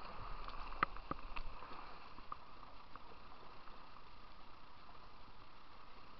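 Kayak paddling on a river: two or three sharp knocks about a second in, then a steady hiss of moving water.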